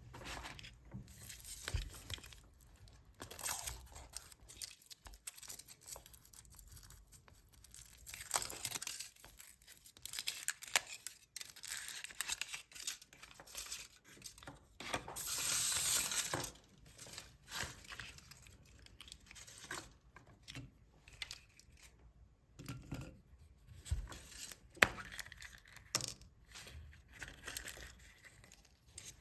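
Chocolate eggs being unwrapped by hand: thin foil wrappers tear and crinkle in irregular bursts, with one longer rustle midway, and a few sharp clicks.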